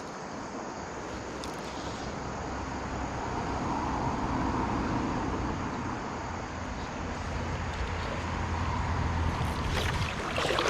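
Steady rushing of a flooded stream running high, swelling a little about four seconds in.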